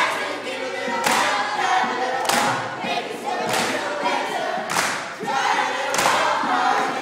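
A group of voices singing together, with a sharp clap-like hit on a steady beat about every second and a quarter.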